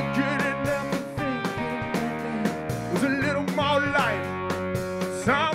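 Live rock band playing: electric guitars and a drum kit keeping a steady beat, with a lead vocal over the top.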